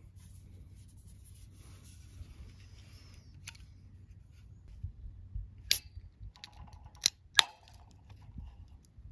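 Aluminium beer can handled with a few sharp clicks, then its pull-tab cracking open about seven seconds in: two snaps in quick succession, the second the loudest.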